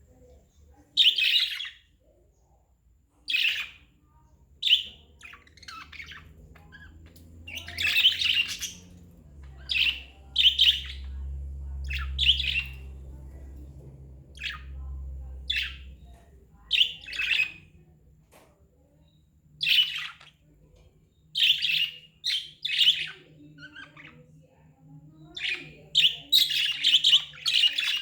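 Pet budgerigars chirping in short, irregularly spaced bursts of chirps and warbles, coming thicker near the end.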